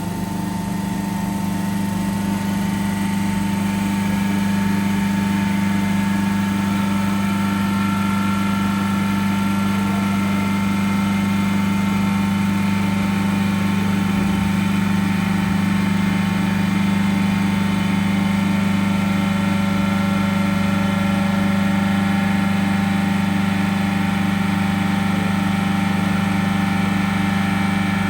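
Rebuilt Dorin H2500CC semi-hermetic reciprocating refrigeration compressor running steadily on its post-rebuild run test, a loud, even low hum with fainter steady higher tones, settling in over the first few seconds after start-up.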